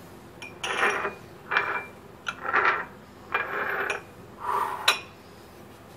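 Small glass bowls being moved about on a countertop: five short scraping rustles about a second apart, then a sharp clink of glass set down about five seconds in.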